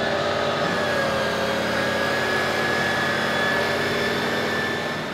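Rollback tow truck's engine running with its hydraulics working to tilt the flatbed: a steady engine drone with a whine over it, dropping away near the end.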